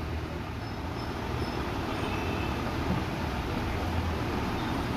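Steady background rumble of road traffic.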